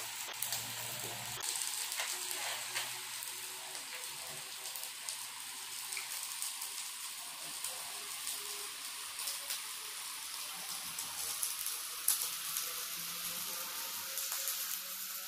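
Pork belly and shrimp sizzling on a grill pan over a portable butane stove: a steady hiss with scattered small pops and ticks.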